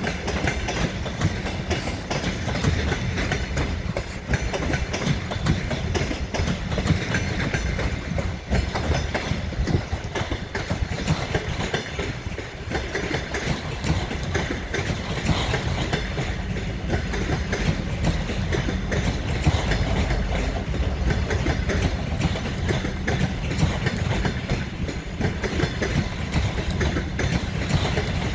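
Passenger coaches of a departing train rolling past, their wheels clattering over rail joints and points in a steady, dense clickety-clack.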